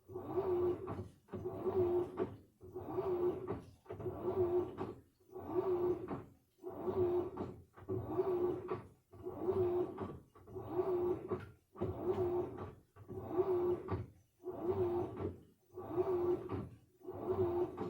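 Samsung washing machine drum turning in short, regular strokes during the wash cycle: a steady motor hum of about a second, a brief pause, then the next stroke, roughly every 1.3 seconds.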